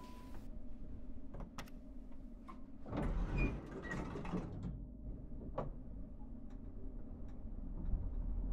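Inside a lift: a few sharp clicks, the doors sliding shut about three seconds in, then a low steady hum of the car that grows near the end.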